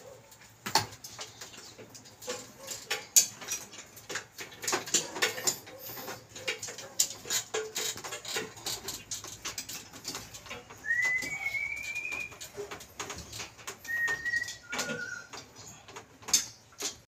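Irregular clicks, taps and rustles of hands handling the aircon indoor unit's plastic casing and drain hose. In the second half come three short high chirps: one rising, about a second long, then two brief ones.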